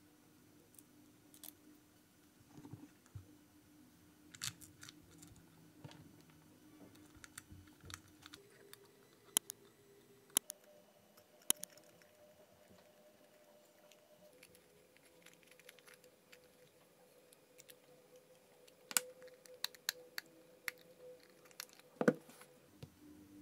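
Scattered small clicks and taps of screws, a hex key and 3D-printed plastic parts being handled and fitted together, with a sharper knock near the end as a part is set down.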